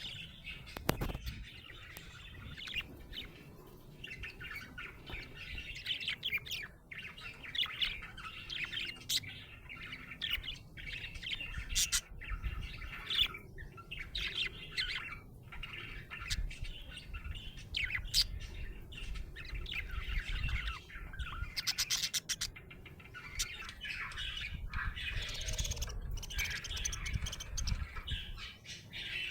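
Budgerigar chirping and warbling in a continuous chatter of quick chirps, clicks and the odd squawk, the contented sound of a happy budgie.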